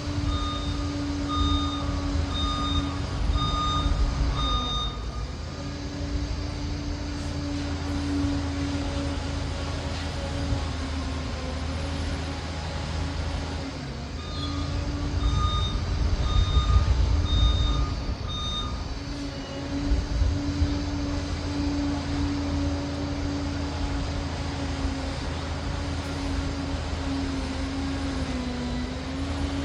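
Liebherr PR 746 Litronic crawler dozer's diesel engine running steadily with a low rumble, its reversing alarm beeping in two runs of about five or six beeps, one at the start and another about fifteen seconds in, as the dozer backs up.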